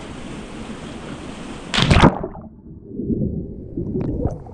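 A person jumping off a rock into a river pool: one loud splash about two seconds in. After it the sound goes dull and muffled, with churning water and bubbles, because the waterproof camera is under the water.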